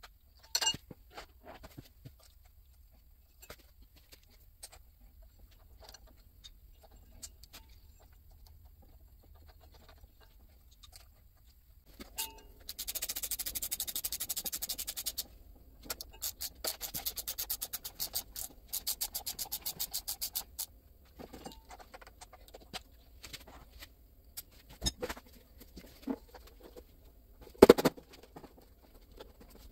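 Hand ratchet clicking quickly as bolts on a transmission case are run down, in two long runs about halfway through. Around them are light clinks and taps of metal parts being handled, and a sharp knock near the end.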